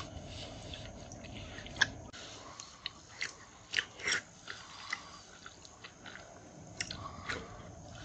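Close-up eating sounds: wet smacks, slurps and chewing of soft, set pork skin jelly in a spicy sauce, taken off chopsticks from a sauce bowl. Short sharp smacks come singly, the loudest a little under two seconds in, several bunched between about three and five seconds, and two more near the end.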